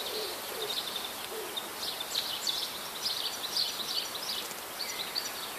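Small songbirds chirping and singing in quick, high notes over a steady outdoor hiss.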